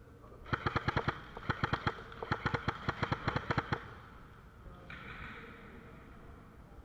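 Airsoft gun firing three rapid full-auto bursts of shots, about ten shots a second, followed about a second later by a brief hiss.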